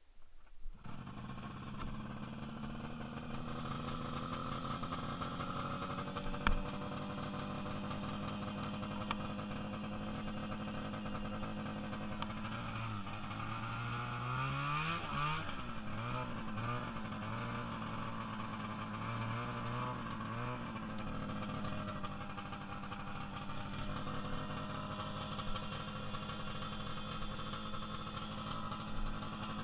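Rebuilt small vehicle engine starting up about half a second in and idling steadily. In the middle it is revved several times, its pitch rising and falling with each blip, before settling back to idle.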